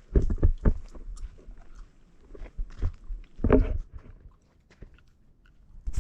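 A hiker's footsteps on a rocky trail: irregular scuffs and thuds of boots on rock and grit, with a louder scuffle about three and a half seconds in and fewer steps near the end.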